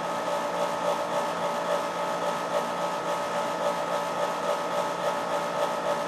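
A motor-driven blower running steadily, with a constant hum over an even whir.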